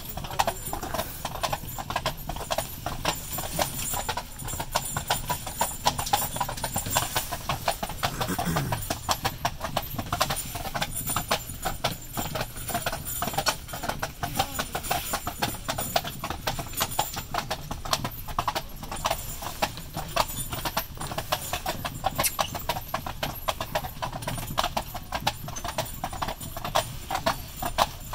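A pair of carriage horses' hooves clip-clopping on a paved road in a steady, quick, overlapping rhythm.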